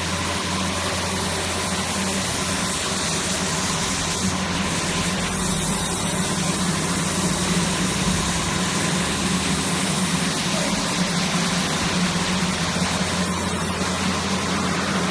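CNC gantry plasma cutting machine running, a steady hum with a broad hiss over it that holds level throughout.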